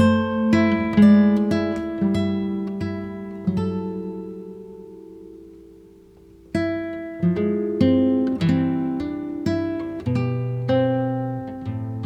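Background music: solo acoustic guitar picking slow melodic notes that ring out, with a pause in the picking midway before the notes resume.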